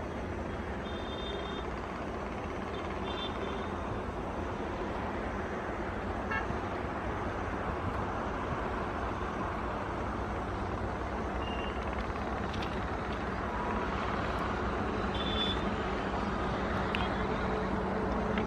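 WDG-5 diesel-electric freight locomotive, with its 20-cylinder two-stroke EMD 710 engine, approaching slowly at the head of a freight train. Its engine rumble is steady and grows gradually louder as it nears.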